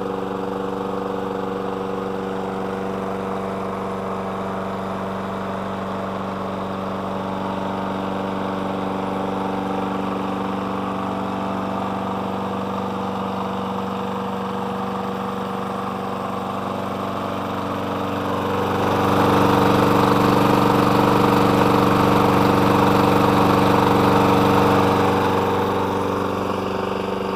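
Briggs & Stratton Quantum 4.5 HP single-cylinder engine on a push lawn mower running at a steady speed after being started on a new spark plug, sounding pretty good. About two-thirds of the way in it grows clearly louder and noisier for around seven seconds without changing pitch, then drops back.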